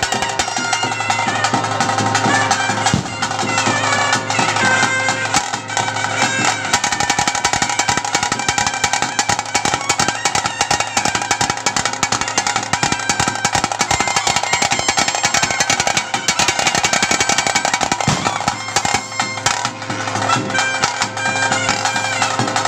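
Bhoota kola ritual music: rapid, continuous drumming with a shrill reed wind instrument playing a wavering melody over a steady drone.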